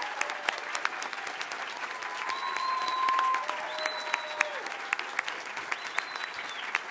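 Audience applauding, a dense patter of sharp, irregular hand claps.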